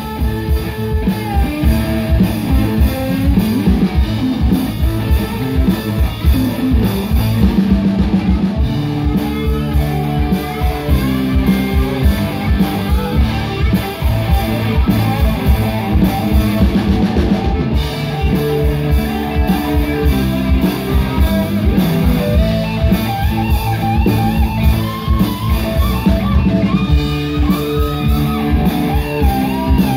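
A live rock band playing: electric guitar over bass guitar and a drum kit keeping a steady beat.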